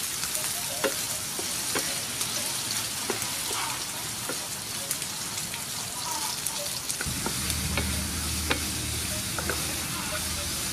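Sliced sea snail frying in hot oil with chopped garlic, sizzling steadily while a wooden spatula stirs it, knocking and scraping against the pan every second or so.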